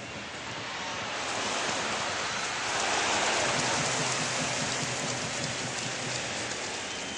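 Football stadium crowd noise that swells to a roar about three seconds in, then eases back.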